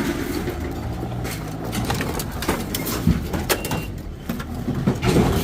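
A vehicle engine running low, with scattered clanks and knocks of scrap metal being handled and a single short reversing beep about three and a half seconds in.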